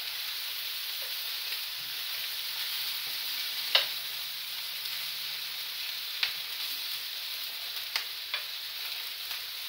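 Sausages sizzling in a frying pan, a steady hiss, with a few sharp clicks of metal tongs against the pan as they are turned. The loudest click comes a little under four seconds in, and three more follow over the next few seconds.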